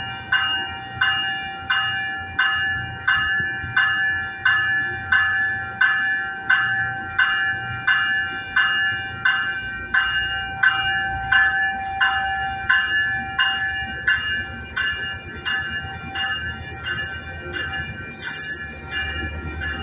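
Metrolink commuter train's warning bell ringing steadily, about three strikes every two seconds, as the train starts to pull away. The strikes weaken after about fifteen seconds as rolling-train noise and a high hiss take over near the end.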